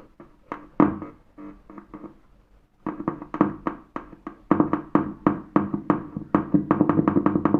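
The 4-inch woofer of a 2.1 home-theater amplifier hums and crackles as a pen tip touches the input pins of its woofer amplifier IC. A few scattered crackles come first, then a rapid run of them from about three seconds in. This noise shows that the woofer amplifier IC and the woofer are working.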